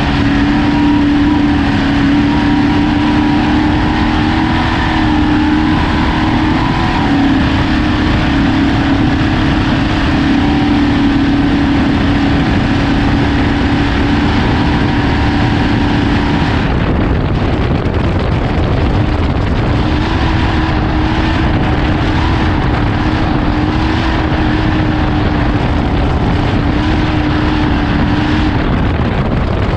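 Off-road race vehicle's engine held at steady revs under loud, steady wind and road noise. The engine note drops away a little past halfway, comes back a couple of seconds later, and fades again near the end.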